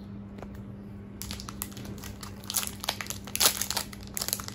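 Packaging crinkling and rustling as a small watch-shaped eraser is unwrapped by hand, starting about a second in and loudest a little after the middle.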